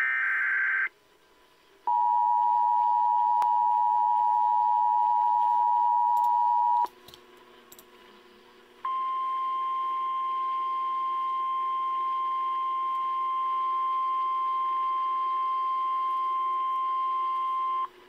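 Emergency Alert System tones announcing a Special Marine Warning. The tail of a SAME data burst comes first. After a short gap comes the two-tone EAS attention signal, a steady chord held about five seconds. After another gap of about two seconds comes the single-pitch NOAA Weather Radio warning alarm tone, held steady for about nine seconds.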